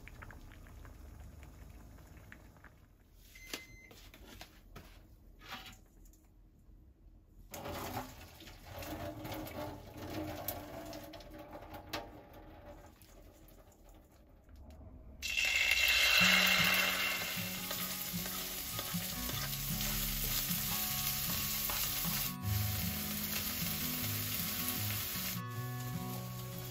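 Pasta being drained into a metal colander in the sink, then, about halfway through, a sudden loud sizzle as food goes into a hot frying pan; it keeps sizzling while being stirred.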